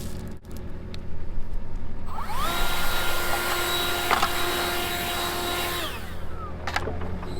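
A handheld power tool's motor spins up about two seconds in, runs with a high whine and hiss for about three and a half seconds, then winds down. A machine engine idles low underneath throughout.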